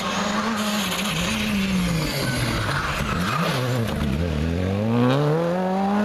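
Skoda Fabia R5 rally car's turbocharged 1.6-litre four-cylinder engine passing at stage speed. The engine note holds steady, dips and wavers about halfway through, then climbs steadily as the car accelerates away, over a hiss of tyres on the road.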